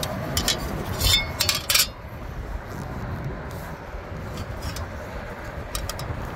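Aluminum fan blade clinking and tapping against a flat metal surface as it is rocked and set down by hand, with a cluster of sharp clinks in the first two seconds and a few lighter taps near the end. The blade rocks because a bent wing keeps it from lying flat.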